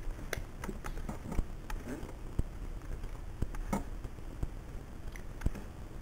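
Computer mouse clicking at an irregular pace, a dozen or so sharp single clicks, over a steady low hum.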